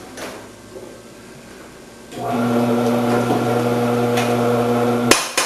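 Electric motor of an Omcan HLC-300 commercial vegetable cutter, fitted with a grating disc, switched on about two seconds in and running with a steady hum, then cut off abruptly with a sharp click and a second click just after.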